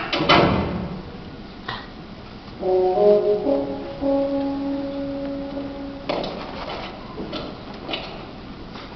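Recorded show music played over a gym's loudspeakers: a held chord of several steady notes lasting about three and a half seconds, starting a few seconds in. A brief loud noise comes right at the start.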